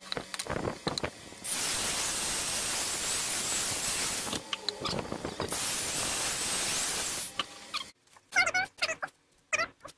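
Corded electric drill boring pilot holes into the end of a 2x4: two runs of about two to three seconds each, with a short pause and a few clicks between them. A few brief, louder sounds follow near the end.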